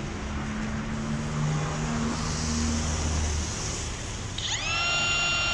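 DeWalt DCW600B 20V brushless cordless compact router switched on about four and a half seconds in, its motor spinning up in a fast rising whine that settles into a steady high-pitched whine. Before it starts there is only a low steady rumble.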